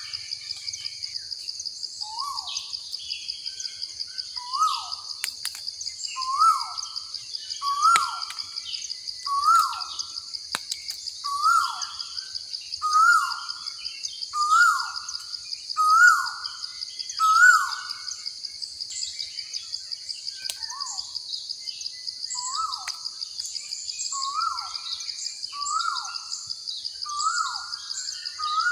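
A bird calls over and over, about every second and a half, with a short call that rises quickly and then drops, and pauses briefly after about two-thirds of the time. Under it runs a steady high-pitched, finely pulsing drone.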